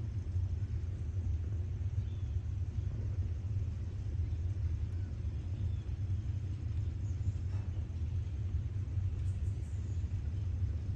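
A steady low rumble, with a few faint, short high chirps over it.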